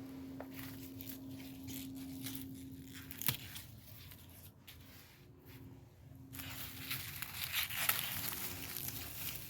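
Garden plant leaves being picked by hand: a sharp snap a little after three seconds, then a few seconds of rustling and tearing of leaves near the end, over a faint steady hum in the first few seconds.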